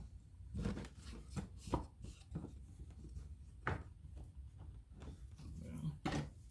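Wooden 2x4 strips being handled on a workbench: a few light knocks as boards are set down and shifted, with some rubbing of wood on wood between them.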